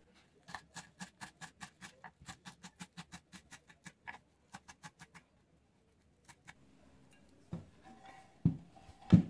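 Kitchen knife chopping celery on a wooden cutting board: quick even strokes, about six a second, for about four seconds, then a few more before stopping. A couple of heavier thuds come near the end.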